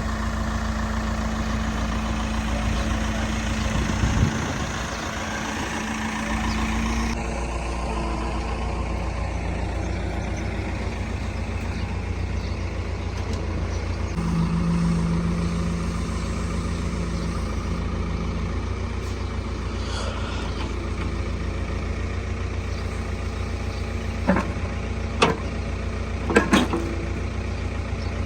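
JCB 3DX backhoe loader's diesel engine running steadily, with a few sharp knocks near the end.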